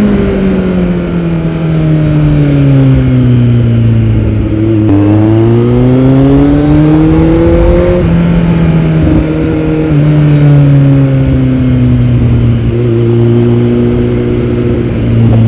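Kawasaki Z900 inline-four engine through a Yoshimura R77 full-system exhaust while riding. The engine note falls for about five seconds as the throttle is closed, rises again under acceleration, then drops back in a few steps, likely gear changes.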